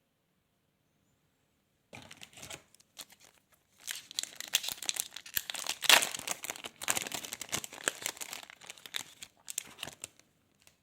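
Trading card pack wrapper being torn open and crumpled: a few sharp crackles a couple of seconds in, then a long stretch of dense crinkling and tearing that stops near the end.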